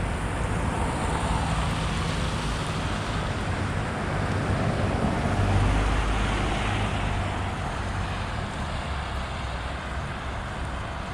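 Street traffic: a car driving by, its low engine hum and tyre noise swelling to a peak about halfway through and then fading.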